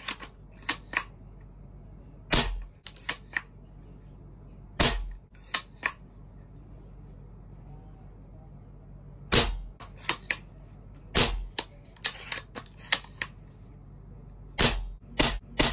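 Airsoft gun firing BBs through a tracer unit: sharp snapping shots in quick groups of three or four, with short pauses between the groups.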